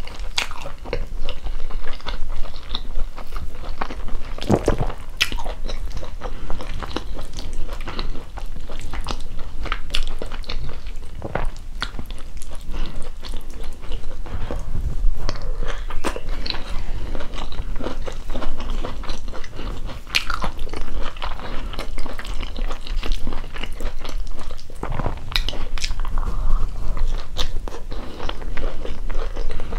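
Close-miked mouth sounds of a person chewing soft food (ugali, stewed cabbage and beef) eaten by hand, with a steady run of frequent small wet clicks.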